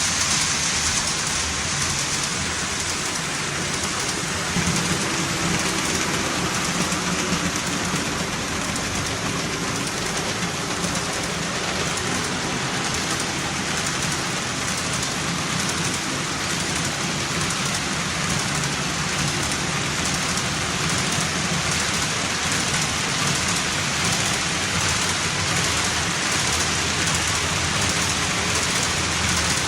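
HO-scale model train rolling on the layout track: a steady rushing rattle of wheels on rail, with a faint low hum beneath.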